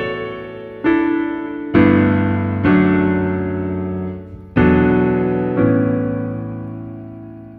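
Background piano music: slow, sustained chords, a new one struck every second or so, each ringing out and dying away, the whole fading near the end.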